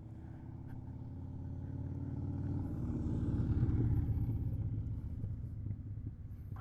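Kawasaki Vulcan 650 S parallel-twin engine idling through an aftermarket CS Racing exhaust with its baffle removed: a steady low, evenly pulsing exhaust note that swells in level about three to four seconds in and then eases back.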